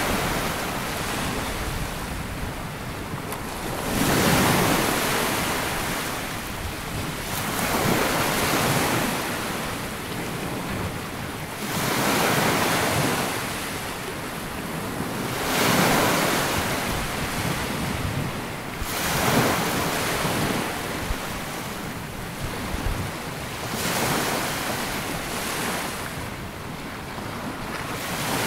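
Sea waves breaking and washing up a sandy beach, a new surge swelling and fading every three to four seconds.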